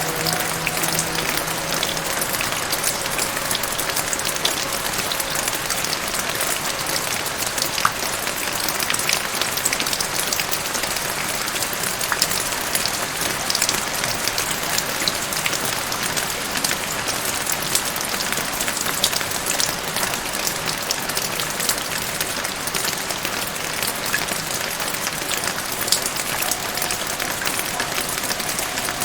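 Steady rain falling: an even hiss of rainfall dotted with many sharp individual drop hits. A few soft held music notes fade out about two seconds in.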